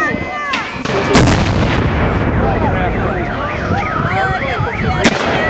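Stun grenades going off in the street: three sharp bangs, the loudest about a second in and another near the end, over a shouting crowd.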